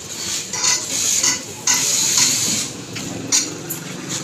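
Felt-tip marker scratching across a plywood crate in a few short, uneven strokes, over faint street noise.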